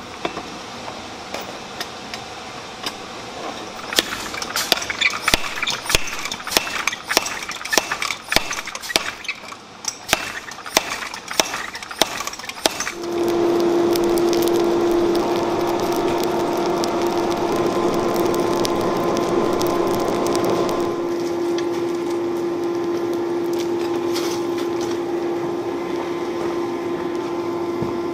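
Irregular metal knocks and clinks of tongs and steel against the anvil. About halfway through, a forge blower takes over, running with a steady hum and a constant rush of air as the coal fire is blown.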